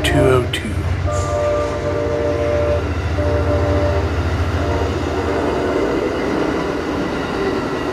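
Passenger train passing: its horn chord drops in pitch as the locomotive goes by, then the cars roll past with a steady low rumble while high steady tones come and go over the next few seconds.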